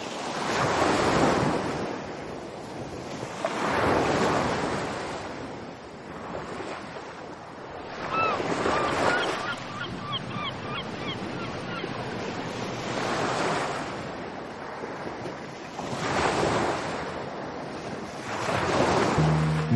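Ocean surf: waves washing onto a shore, swelling and falling about every three to four seconds. A flurry of short bird cries comes about eight seconds in and lasts a few seconds.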